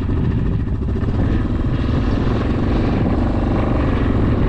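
Wind buffeting the microphone: a steady, loud rumble.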